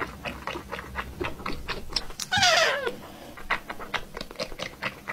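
Kitten sucking milk from a feeding bottle: short sucking clicks about four a second, with one short mew falling in pitch a little over two seconds in.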